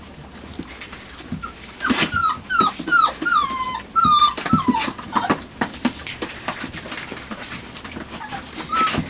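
Five-week-old chocolate Labrador puppy whimpering: a quick run of short, high, falling whines in the first half, and one more near the end, among scattered light knocks and scuffles.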